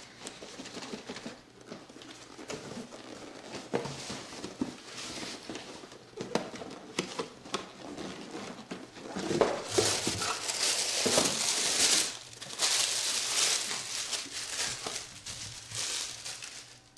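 Cardboard box being opened and tissue paper crinkling and rustling as a boxed doll is unwrapped, with small knocks of cardboard. It is loudest for several seconds in the second half.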